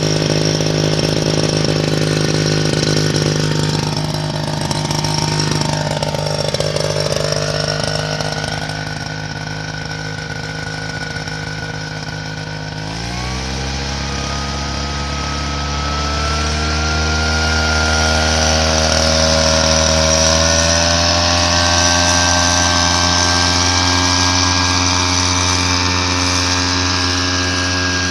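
Victa backpack mist-blower sprayer's small two-stroke engine running steadily at low speed, then throttled up sharply about halfway through and held at high speed, its fan whining as it blows spray out of the nozzle.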